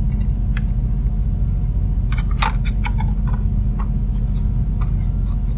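Scattered light clicks and taps of hands handling a plastic LED light housing and its LED board, the loudest cluster about two and a half seconds in, over a steady low hum.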